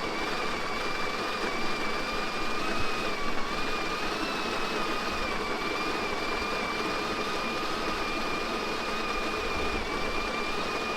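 Breville BES870XL espresso machine's built-in conical burr grinder running steadily, grinding coffee beans, with a steady high motor whine over the crunching of the beans.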